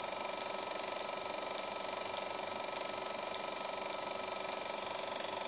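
EIKI Slim Line 16mm film projector running: a steady, rapid mechanical clatter of the film being drawn through its gate.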